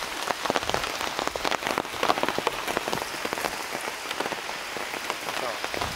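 Steady rain pattering, a dense run of small drop ticks.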